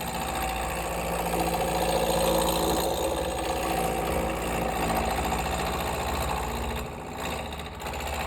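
Wood lathe running at slow speed while a roughing gouge cuts the corners off a spinning square wooden blank: a steady motor hum under a fast, even chatter of wood striking the tool. It is the sound of roughing a square blank down toward a cylinder, and it dips briefly near the end.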